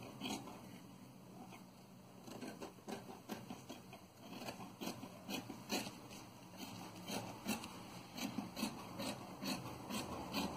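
Fabric scissors snipping through folded cloth: a run of short, crisp snips at an irregular pace of roughly two a second.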